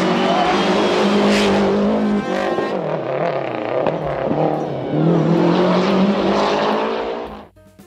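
Lancia Delta HF Integrale rally car's turbocharged four-cylinder engine revving hard on a stage. Its pitch climbs under throttle, drops and rises several times in quick succession through the middle as the driver shifts or lifts, and climbs again before the sound cuts off abruptly near the end.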